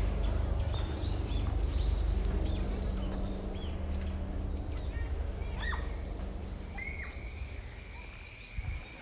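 Birds chirping in short falling calls, with a longer held whistling note near the end, over a low steady rumble that fades gradually.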